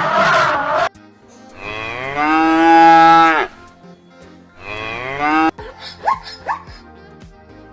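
Cow mooing: a rough call that breaks off about a second in, then one long moo that rises, holds steady and falls, then a shorter call. A few short sharp clicks and chirps follow near the end.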